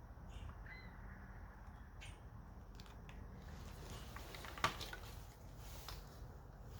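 Faint handling sounds of small tools and wire during a wiring repair: light scattered clicks and rustles, with one sharp click about four and a half seconds in.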